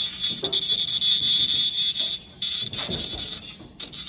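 Dental lab handpiece whining at high speed as its bur grinds the edge of a light-cured resin custom impression tray, cutting out briefly twice, a little after two seconds in and near the end.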